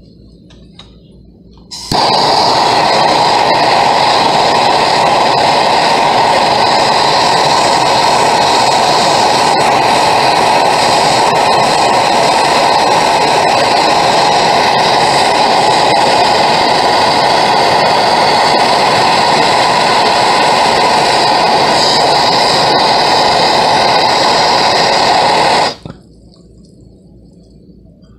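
A plumber's gas torch is lit about two seconds in and burns with a loud, steady hiss while it heats a copper tube and brass male adapter for sweat-soldering the joint. It shuts off suddenly about two seconds before the end.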